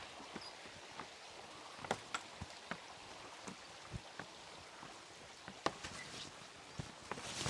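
Creek water running steadily, with scattered light knocks and clicks at irregular intervals.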